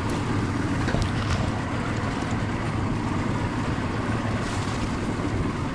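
Outboard motors on two small boats running steadily at a distance, a low even drone, with wind on the microphone.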